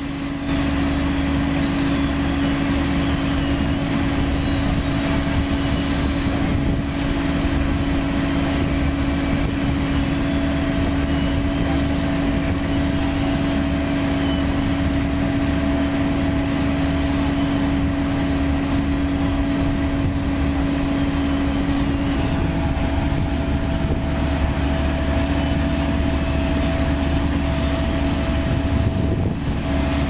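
Sumitomo HA60C asphalt paver's diesel engine running steadily at work, together with a dump truck's engine idling as the truck tips asphalt into the paver's hopper. A steady engine drone with a held hum.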